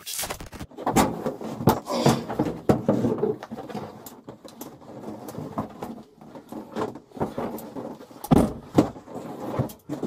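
A handcuffed man squirming and shifting on the molded rear seat of a police car: irregular knocks, bumps and scuffs of his body and shoes against the seat and cage, the loudest a little past eight seconds in.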